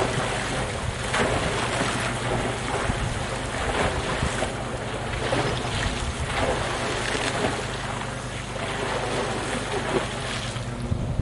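Water splashing repeatedly as a freestyle playboat kayak cartwheels on flat water, its bow and stern and the paddle blades slicing and slapping into the water about once a second. Wind noise on the microphone.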